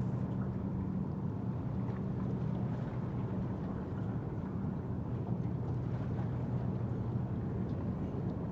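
A steady, low engine drone holding a constant pitch, with light wind on the microphone.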